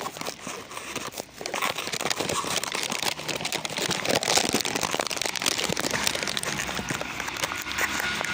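Dense crinkling and crackling rustle close to the microphone, louder from about two seconds in.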